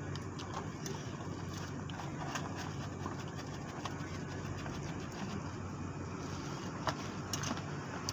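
Steady low mechanical hum in the background, with scattered short clicks of a metal spoon against a bowl while eating, a couple of sharper ones near the end.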